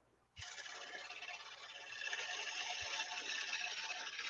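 Gouge cutting the face of a maple burl platter spinning on a wood lathe: a steady hiss of wood being shaved. It starts about half a second in after a brief pause and grows a little louder from about two seconds.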